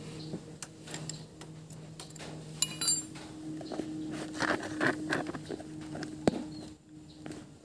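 Light metallic clicks and scrapes of a wrench on the valve-adjuster lock nut of a Honda Wave 100's cylinder head, over a steady low hum.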